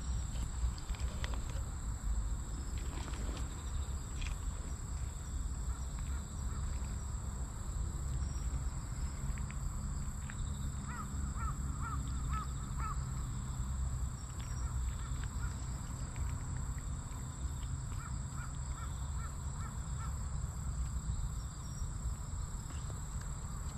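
Cat eating wet food from a metal tray right at the microphone, with scattered soft licking and chewing clicks, over a steady low rumble and a steady high whine. A bird calls in two quick runs of about five short calls, about halfway through and again later.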